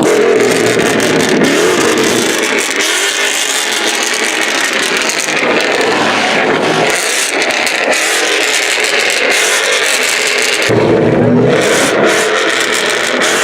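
Loud car engines and exhaust, revving and accelerating. A deeper surge of engine sound comes in about eleven seconds in.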